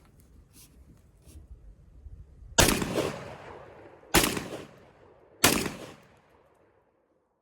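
Garaysar TR19S semi-automatic 12-gauge shotgun fired three times, about a second and a half apart. Each shot echoes and dies away over about a second.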